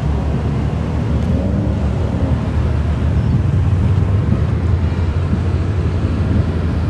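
Off-road rally vehicles' engines idling and running close by, a steady low engine sound with no breaks.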